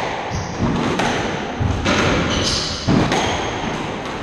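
Squash ball struck by rackets and smacking off the court walls during a rally: a hard hit about once a second, the loudest near the end. Between the hits come short, high squeaks of shoes on the wooden floor.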